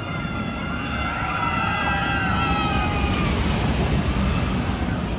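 A roller coaster train rolling along its track: a whine of several tones that slides slowly down in pitch over a low rumble, which grows louder toward the end.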